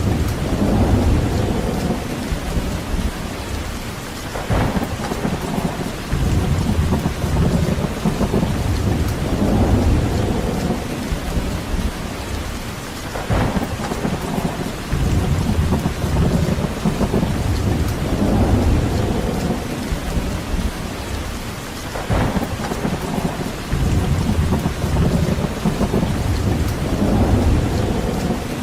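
Steady heavy rain with a low rumble that swells and fades about every four to five seconds. Three brief, sharper sounds cut through it, about nine seconds apart.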